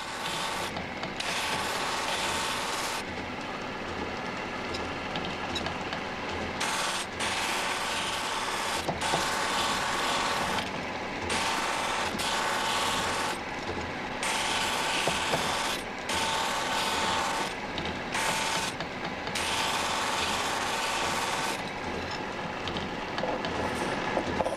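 Steel scissor eye rings being ground on a rotating pliesting (abrasive polishing) wheel, with sparks flying. The scraping hiss comes and goes in bursts of one to three seconds as the bundle is pressed against the wheel, turned to each side and lifted off, over the steady whine of the running wheel. The grinding falls away for the last few seconds.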